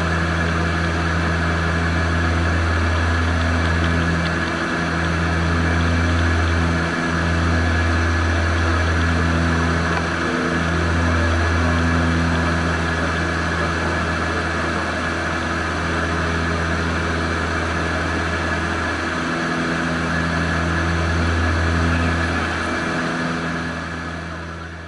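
Antonov An-24's twin Ivchenko AI-24 turboprop engines and propellers running, a loud steady low propeller drone whose deepest tone dips and swells every few seconds. The sound fades out near the end.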